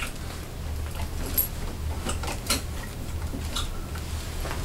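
Clothes being handled: scattered light clicks and soft rustling, about half a dozen small clicks over a steady low hum.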